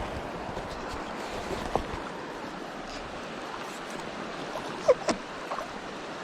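Mountain stream water rushing steadily. A few short, sharp chirping sounds cut in, the loudest pair about five seconds in.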